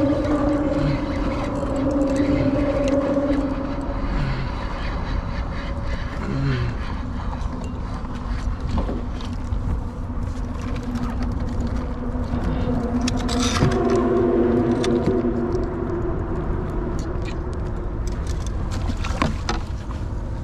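Wind rumbling on the microphone over a steady engine hum that shifts in pitch a few times, with scattered light clicks.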